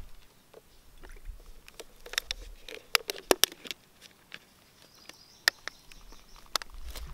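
Sparse light clicks and taps of small objects being handled, with a faint hiss for a couple of seconds after the middle.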